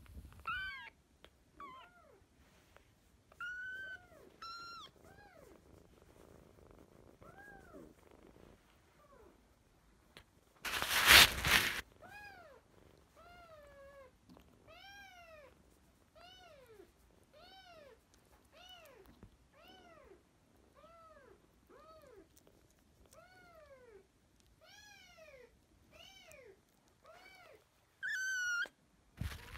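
Kitten mewing over and over: short, arching cries, about one a second through the second half, with a higher-pitched cry near the end. A loud rustling noise breaks in about eleven seconds in.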